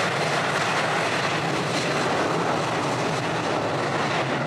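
Twin jet engines of a Boeing 737 airliner running at takeoff thrust during its takeoff roll: a steady rushing noise.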